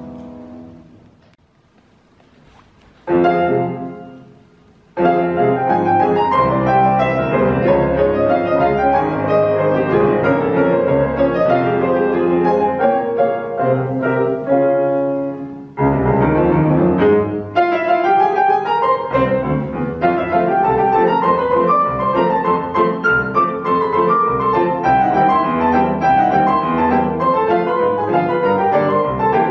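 A Petrof grand piano played four hands. A held chord dies away to near silence, a loud chord is struck about three seconds in, and from about five seconds in playing runs on continuously, with a rising run about sixteen seconds in.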